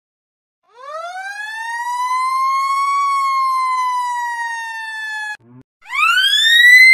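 Fire truck siren sound effect: one wail rising for about two seconds, then slowly falling before it cuts off suddenly. After a short gap the same wail starts again, louder and at a higher pitch, as an edited variation.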